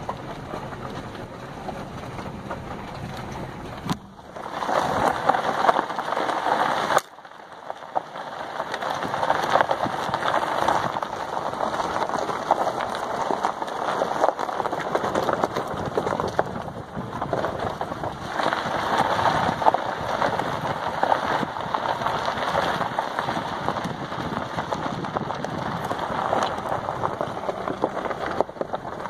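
Road noise of a Jeep Grand Cherokee WK2 rolling slowly along a dirt fire road: a steady rush of tyres on gravel and air. The sound changes abruptly about four and seven seconds in.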